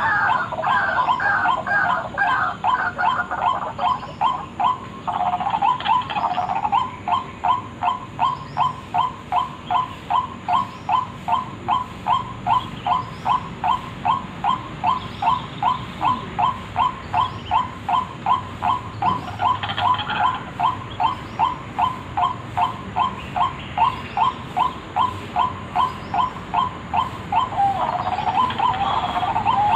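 White-breasted waterhen calling: a harsh, crowded stretch of calls at first, settling about six seconds in into a long run of short repeated notes, about two and a half a second, which turns harsher again near the end.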